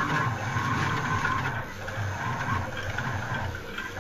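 Homemade six-axis CNC machine tool running a drill test: its stepper motors hum and whine as the axes move, the tone shifting every second or so.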